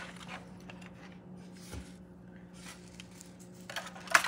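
Hands laying fresh herb sprigs around a raw turkey in a disposable aluminium foil roasting pan: soft rustles and small taps, with one sharp crinkle about four seconds in. A steady low hum runs underneath.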